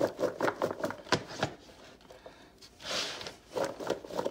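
Cubed zucchini and cauliflower tossed in a clear bowl, shaken rapidly to coat them in olive oil and seasoning: a fast, even rattle of about seven shakes a second. It pauses midway, a short hiss comes about three seconds in, and the shaking starts again near the end.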